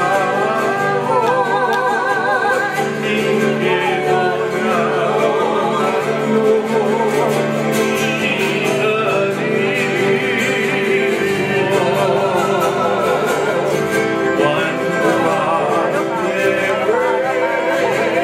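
Live Hawaiian music accompanying a hula: a singer's voice with a wavering vibrato over strummed ukulele and guitar, playing steadily.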